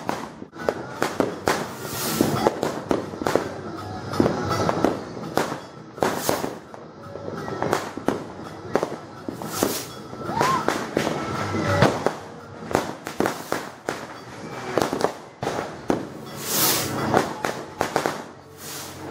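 Fireworks and firecrackers going off nonstop, many sharp bangs and crackles overlapping one another, with music underneath.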